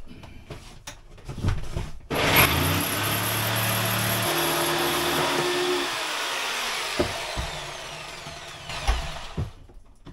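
An electric power saw starts up about two seconds in and cuts through a flooring plank for a few seconds, then is switched off and winds down with a falling whine. A few knocks near the end.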